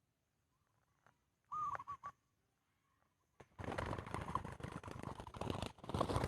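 A dove gives one short cooing phrase about one and a half seconds in, a wavering call of a few notes. About three and a half seconds in, a loud rustling noise takes over and runs on.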